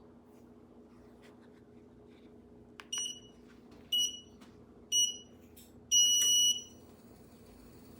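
Walking pad treadmill's start-up countdown: three short electronic beeps a second apart, then a longer fourth beep, all on one pitch, over a faint steady hum.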